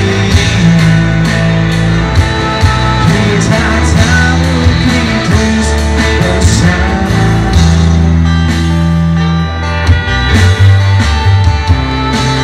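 Live band playing a slow pop-rock song: electric guitar over bass and drums with a male voice singing; near the end the singer steps back from the microphone and the electric guitar carries on.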